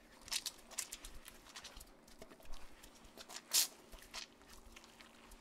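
Faint, irregular wet patters and small splashes of dirty shampoo suds and water dripping off a dog onto a bathing-tub floor, over a low steady hum.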